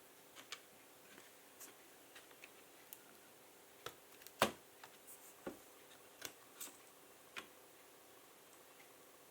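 Irregular light clicks and taps of small parts and tools being handled as the MXM graphics card is taken out of a laptop. There are a dozen or so separate clicks, and the loudest, a sharp one, comes about four and a half seconds in.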